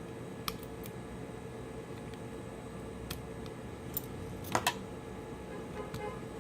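Scattered small sharp clicks and taps as a Samsung Galaxy Note 5 phone is taken apart with hand tools, the loudest a quick double click about halfway through, over a steady background hum.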